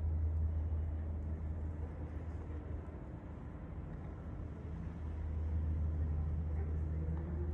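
Low outdoor rumble with a faint steady hum, easing a little about three seconds in and swelling again about five seconds in.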